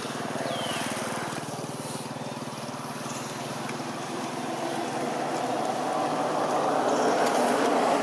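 A motor vehicle's engine running steadily, growing louder over the last few seconds as it comes closer.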